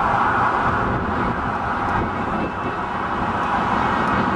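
Steady outdoor city background noise, mainly road traffic: a continuous, even wash of sound with no distinct events.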